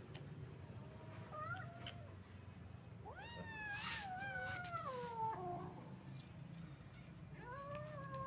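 Domestic cats meowing: a short rising meow about a second in, a long drawn-out meow from about three seconds in that rises sharply and then falls slowly, and another meow starting near the end.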